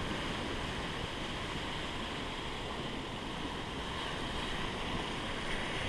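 Sea surf washing in over sand and around shoreline rocks: a steady rush of breaking waves.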